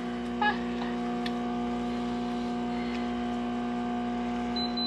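A steady electrical hum with several pitches held together, like a household appliance running. Near the end a quick run of short, high beeps begins.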